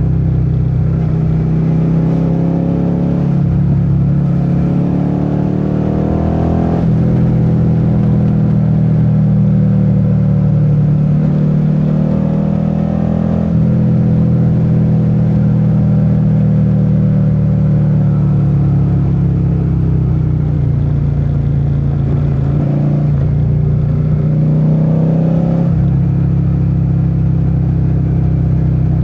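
Suzuki SV650's 645 cc V-twin engine pulling under acceleration on the road. The revs climb in several runs and drop back sharply at each gear change, then settle to a steady cruise.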